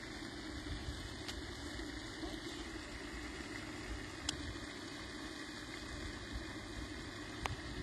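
Steady outdoor background noise, a low rumble and hiss, with three faint clicks spread across it.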